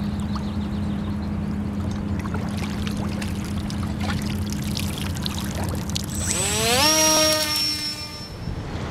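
Water pouring and dripping off a Multiplex Easy Star RC plane as it is lifted out of the water, over a steady low hum. About six seconds in, the plane's brushless electric motor and propeller spin up in a quickly rising whine that levels off, then fades as the plane flies off.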